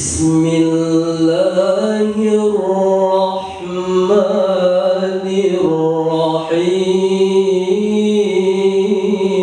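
A man reciting the Quran in the melodic tilawah style, singing long, drawn-out notes that wind slowly up and down in pitch, with brief breaths between phrases.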